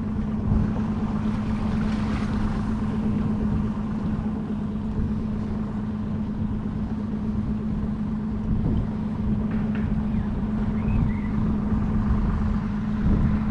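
A boat motor running steadily with a constant low hum over a rumble.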